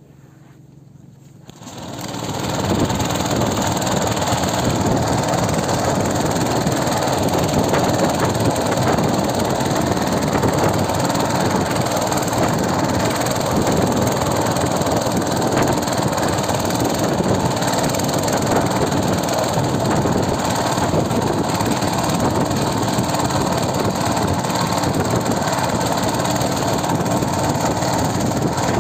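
A small wooden fishing boat's engine running steadily under way, with water rushing along the hull on choppy water; it comes in abruptly about two seconds in and stays loud and even.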